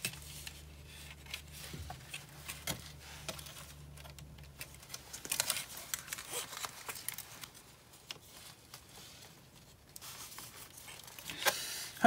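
Hands handling plastic model parts and wiring: faint rustling with many light clicks and scrapes as the wires are fed through the plastic trailer bed.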